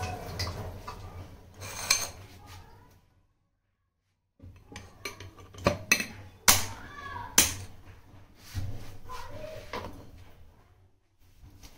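Stainless-steel mixer-grinder jar and its clamped lid being handled and set on the base: a run of sharp metallic clinks and knocks with a few short squeaks, after a moment of silence.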